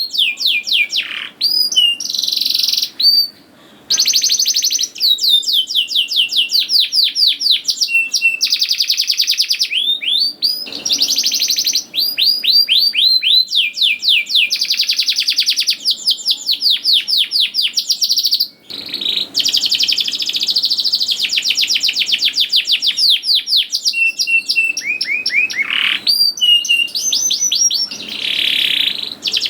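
Domestic canary singing without a break: fast rolling trills of rapidly repeated notes, mixed with high chirps and quick downward-sweeping whistles.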